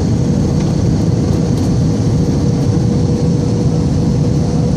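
Jet airliner cabin noise on approach with flaps extended: a steady, loud rush of engine and airflow with a thin steady hum running through it.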